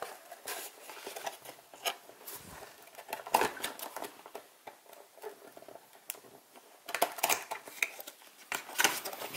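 Hands opening the top flaps of a cardboard perfume box: scattered light scrapes, taps and rustles of card, with the sharpest click about three and a half seconds in.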